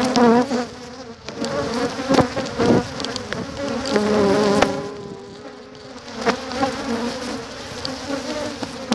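Honey bees buzzing in flight close around an opened hive, single bees passing near with a wavering pitch that swells and fades. A few short knocks are heard among the buzzing.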